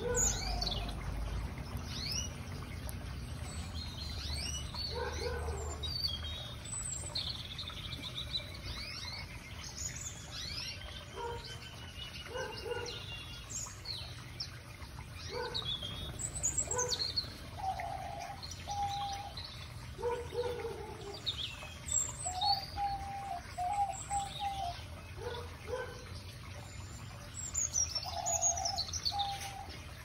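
Mixed small aviary finches and canaries chirping and calling together: many quick high chirps and whistled glides, with lower call notes in short repeated runs throughout.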